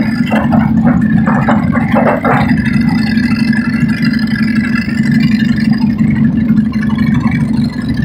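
Light aircraft engine running steadily with its cowling off, heard from inside the cockpit as one loud, even drone.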